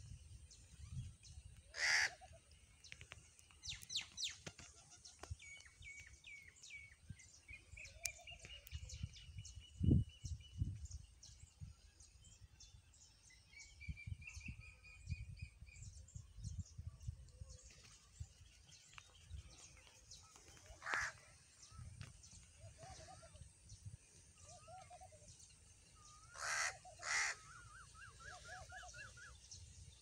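House crows cawing: a few loud, harsh single caws spread apart, two in quick succession near the end, over smaller birds chirping and trilling. A single low thump about a third of the way through.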